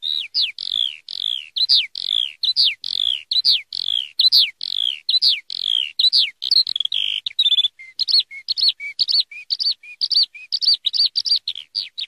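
Eurasian skylark singing: a fast, unbroken stream of high, down-slurred whistled notes, two or three a second. About seven seconds in the song changes to a brief trill, then to quick alternating high and low chirps.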